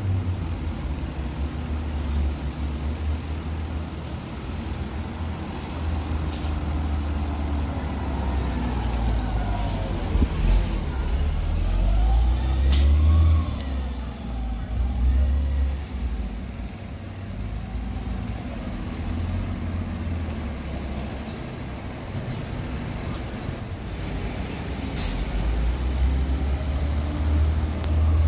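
City transit buses driving off and turning, their engines running under a steady low rumble, with the pitch rising and falling in the middle as they pull away. Several short, sharp air-brake hisses break in along the way.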